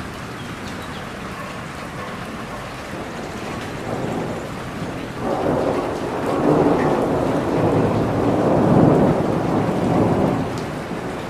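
Steady rain with a long roll of thunder that builds about a third of the way in, rumbles loudest in the second half and dies away near the end.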